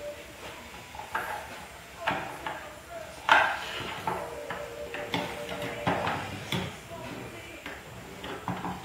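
Small irregular clicks and knocks of hands working inside a plastic electrical enclosure, handling the control board's wiring and connectors, with a sharper knock about three seconds in.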